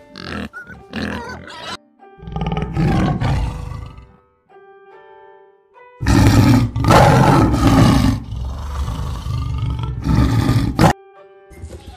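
Tigers growling and roaring in rough, loud bouts: one about two seconds in, and a longer, louder one of about five seconds in the second half. A few short piglet grunts come at the start, and a simple background tune plays in the pause between the roars and again at the end.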